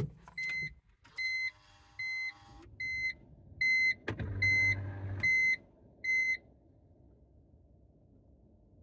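BMW Z4 dashboard warning chime beeping about eight times, a little under one beep a second, as the ignition is switched on. A whir runs about a second in; then, about four seconds in, a click and a short low hum as the navigation screen's electric motor flips the screen up.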